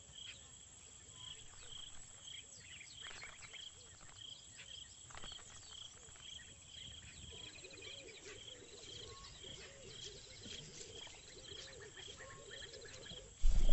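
Quiet African bush ambience: an insect chirping steadily about three times a second, with a few brief bird chirps and a rapid high trill, and lower wavering calls joining in the second half.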